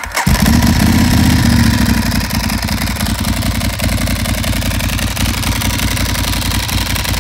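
Ducati Monster 1100's air-cooled L-twin starting up and catching within the first half-second, running a little higher and louder for about two seconds, then settling into a steady idle. It is heard through the Termignoni twin silencers with the baffles removed.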